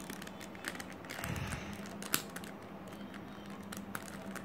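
Plastic pieces of a 3x3 speed cube being pressed and snapped back into place by hand during reassembly: irregular small clicks, one louder click about two seconds in, with a soft rustle a little after a second in.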